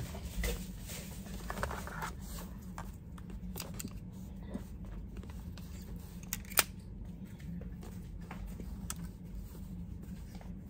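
Small plastic clicks and rustles of an Insta360 Go 2 camera and its charging case being handled, with one sharp click about six and a half seconds in as the camera is snapped into the case. A steady low hum runs underneath.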